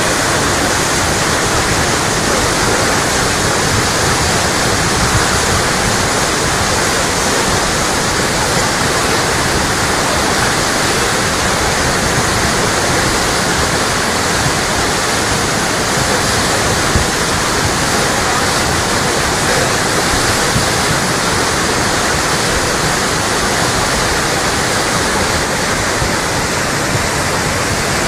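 Muddy flash floodwater carrying debris, rushing past in a loud, steady torrent.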